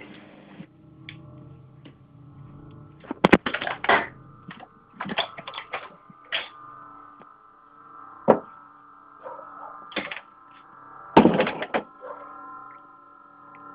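An unexplained droning sound in the sky: a steady hum of several overlapping tones that begins about a second in and holds on. Sudden loud bursts of noise cut across it, in a cluster around three to four seconds and loudest around eleven seconds.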